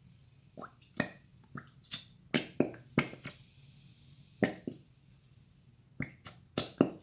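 Bottle of clear glue squeezed into a bowl, giving a horrible noise: about a dozen short, irregular sputtering pops and squelches as glue and air spurt out.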